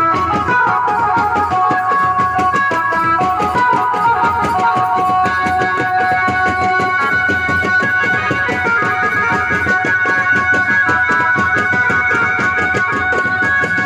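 Tasa band music: a keyboard melody played through horn loudspeakers over fast, continuous drumming on bass drums and small drums.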